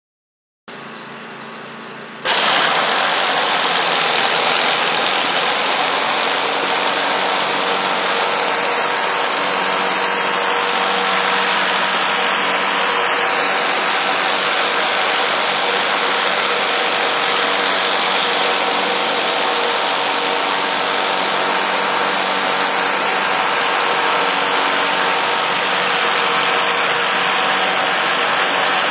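Engine-driven high-pressure cleaner running steadily with a loud hiss of water jetting from a surface cleaner onto concrete. A quieter engine note starts about a second in, and the sound jumps much louder about two seconds in as the spray comes on.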